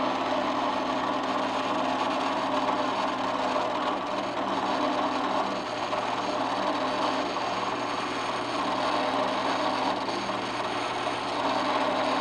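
Floor-standing drill press running steadily, its bit cutting into a lubricated steel workpiece held in a vise. A steady motor hum sounds together with the noise of the cut.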